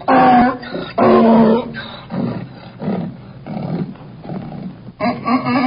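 Donkey braying: two loud drawn-out calls in the first two seconds, then a run of quieter wheezing in-and-out breaths, then another loud call begins near the end.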